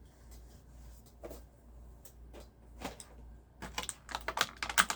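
Small model-kit parts and packaging being handled, clicking and rattling: a few separate clicks, then a quick run of clicks near the end.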